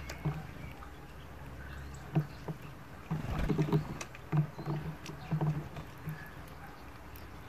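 Finches cracking sunflower seeds at a metal-dish feeder: scattered sharp clicks and taps of beaks on seed husks and the dish, busiest a little after the middle. A low, uneven rumble comes and goes underneath.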